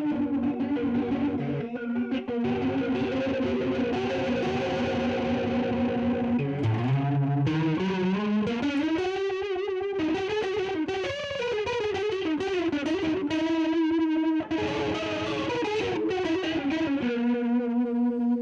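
Electric guitar with P90 pickups played through a Donner Jet Convolution flanger pedal: held notes, a slide up in pitch about halfway through, and a wavering, sweeping tone from the flanger.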